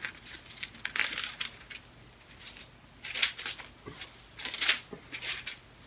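Thin Bible paper rustling and crinkling as pages are handled and turned, in several short separate rustles.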